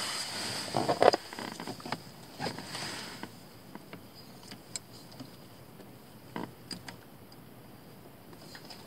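Hands handling wires and a rope-splicing fid: rustling and rubbing for the first few seconds, with a few louder scrapes about a second in, then scattered light clicks and taps.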